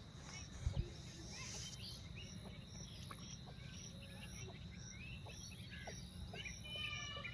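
Outdoor pond-side ambience: small birds chirping and calling throughout, over a steady high insect drone with a faint pulse about twice a second. A brief low thump less than a second in.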